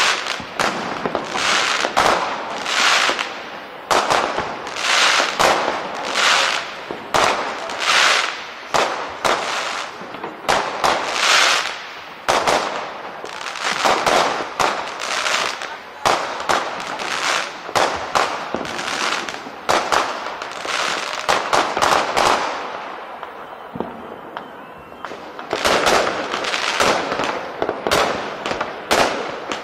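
Fireworks going off: a dense run of overlapping bangs and crackles, easing in a short lull a little over two-thirds of the way through, then picking up again.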